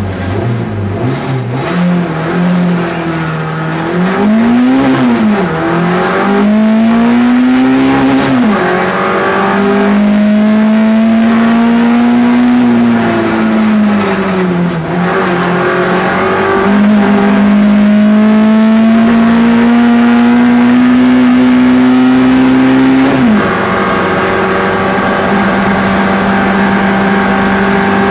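Race car engine running hard on a hill-climb run, its note climbing again and again through the revs and then dropping back. Near the end the note holds steady.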